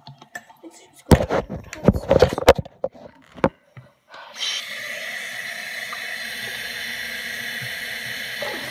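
A few sharp knocks and clatters, then a tap starts running steadily into a sink about four seconds in.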